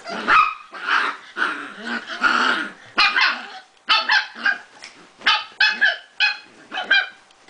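Prague Ratter dogs barking and growling in play: a quick series of short barks, about two a second. It is rough play-fighting, not real aggression.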